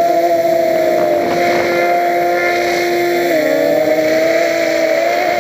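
Quadcopter's electric motors and propellers whining steadily, with a slight wobble in pitch, dropping a little lower a bit past halfway.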